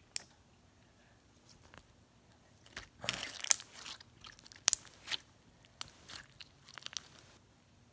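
Clear slime being squeezed and pressed between the fingers, making irregular sticky clicks and crackling pops, mostly in the second half.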